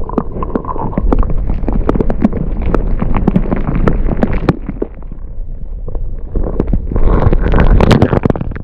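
Camera microphone held underwater in a hole in lake ice: a heavy, muffled sloshing rumble with many sharp clicks and knocks, getting louder near the end as the camera is lifted back out of the water.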